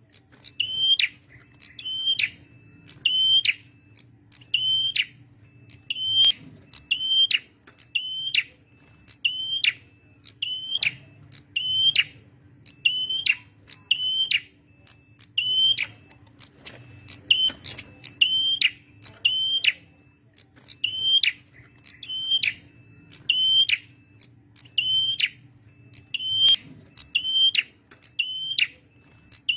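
Male prenjak merah singing lively: sharp, high, chirping notes, mostly in pairs, repeated roughly every second without a break. A faint steady hum lies underneath.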